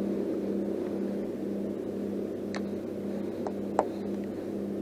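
A steady low hum with a constant droning tone, and three light clicks in the second half.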